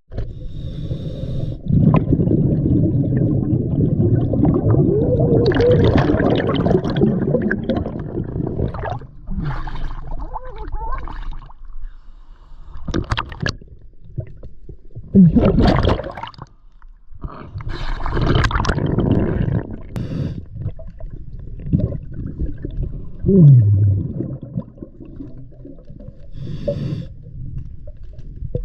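Underwater sound of a scuba diver breathing through a regulator: loud, muffled gurgling bursts of exhaled bubbles come and go in several long rushes, with quieter gaps between them and a couple of brief low squeaky glides.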